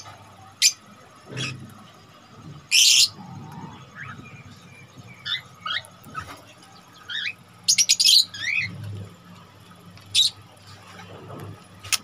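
Caged lovebirds calling in an aviary: short, shrill chirps and squawks at irregular intervals, the loudest about three seconds in and a quick run of them around eight seconds.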